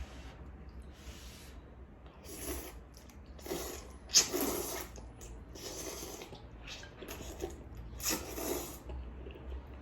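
Mouth sounds of eating spicy noodles: about six short, noisy slurps and sharp breaths, the loudest about four seconds in.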